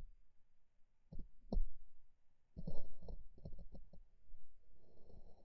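Scattered light knocks and clicks against a plastic kayak, coming in two short clusters about a second in and around three seconds in.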